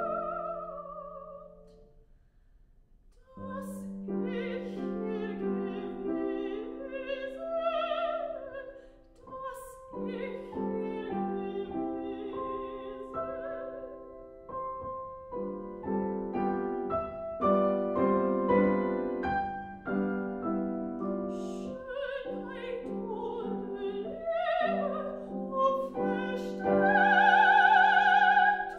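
Soprano singing a German art song with grand piano accompaniment. Her held note fades about a second in and a short near-silent pause follows; then the piano comes back in, the voice returns, and it builds to a loud held high note with vibrato near the end.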